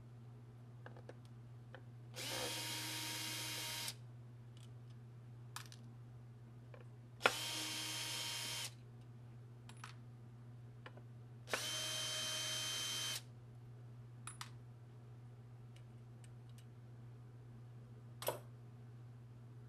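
Cordless drill-driver with a Torx bit backing the small screws out of a hard drive's case. Its motor whines steadily in three short runs, each about a second and a half, with small clicks and taps in between.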